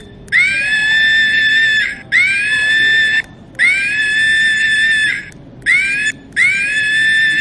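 Chimpanzee screaming: a run of five loud, high-pitched screams, each sweeping up at the start and then held steady for about a second, with the fourth much shorter than the rest.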